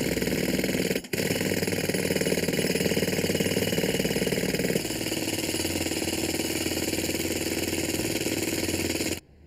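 Jackhammer chiselling into concrete: fast, steady hammering, loud, with a momentary break about a second in and a change in tone near the middle. It cuts off suddenly just before the end.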